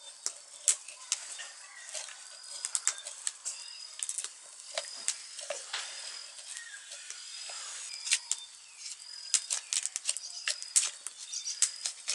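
Knife blade shaving strips off a freshly cut branch: a series of quick, irregular scraping strokes, each one short and sharp.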